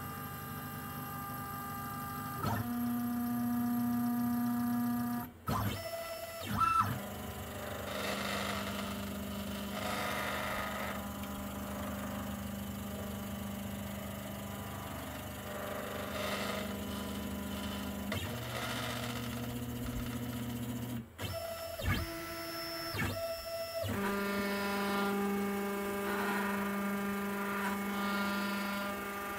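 A Genmitsu ProverXL 4030 desktop CNC router's stepper motors whine as the machine runs an XYZ touch-probe routine to find the stock's top and corner. The whine jumps to a new pitch several times as one move gives way to the next, and it breaks off abruptly twice, followed each time by a few short blips.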